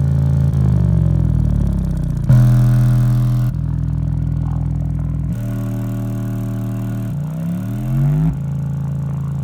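Bass test track played loud through a sound bar and subwoofer. Deep held bass notes step to a new pitch every second or two, with a downward slide about a second in and a rising sweep near the end.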